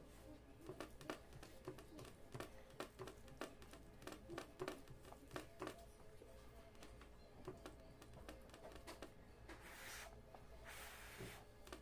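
Quiet eating sounds: many small clicks and smacks of chewing and cutlery on a plate, thickest in the first half, then two short rustling hisses near the end.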